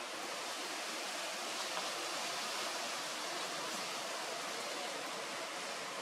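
Steady, even outdoor background hiss with no clear bird calls.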